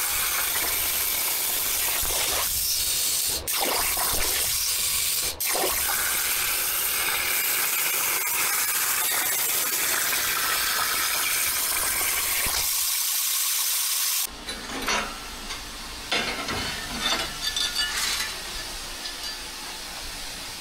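CNC plasma cutter torch cutting quarter-inch steel plate: a steady, loud hiss with a couple of brief dropouts. About fourteen seconds in it stops abruptly, followed by scattered clinks and knocks of cut steel pieces being handled.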